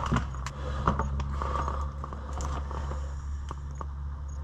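Light clicks and scrapes of parts being handled on a workbench, over a steady low hum.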